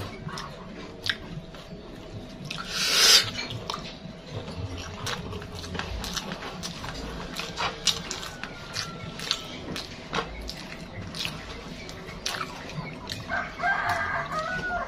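Close-up eating sounds: chewing and lip smacks with many small clicks as rice, egg and tofu are eaten by hand. A short loud rustle about three seconds in. A rooster crows in the background near the end.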